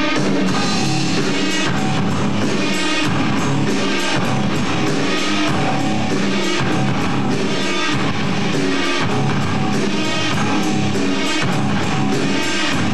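Rock band playing live: distorted electric guitars over a drum kit in a steady, loud rock beat.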